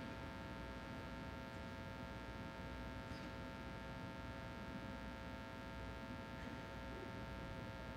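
Quiet room tone of a large ice arena: a steady, low hum with no other distinct sound.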